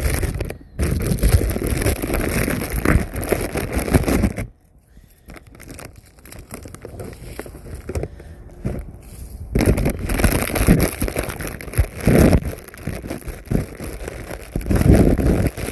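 Saltine crackers being crushed by hand: rough crackling and crinkling in two spells, with a quieter stretch of several seconds in between.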